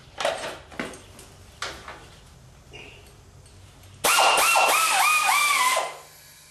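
Handheld pneumatic wrench, fed by an air hose, run for about two seconds on a bolt of an Allis-Chalmers 310 garden tractor being dismantled, starting about four seconds in. Its whine dips and recovers in pitch about five times as it works. A few clicks and knocks from the tool being fitted come before it.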